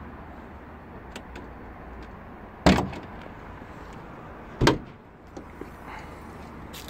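Two sharp clunks about two seconds apart from a Volkswagen Golf 7's bonnet latch being released and the bonnet opened.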